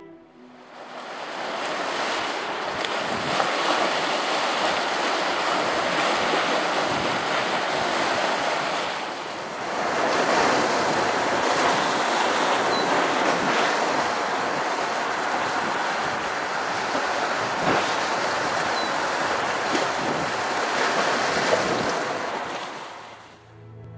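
Waves washing onto a rocky lakeshore, a steady rushing that dips briefly about ten seconds in.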